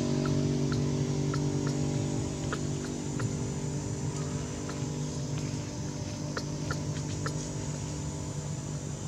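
An engine running steadily, a low even hum that slowly fades, with a few faint short ticks scattered over it.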